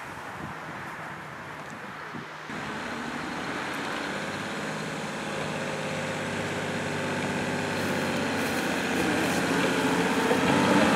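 Toyota Land Cruiser's engine running at low, steady revs as it crawls down a sandy off-road track. It steps up in level about two and a half seconds in and grows gradually louder as it approaches.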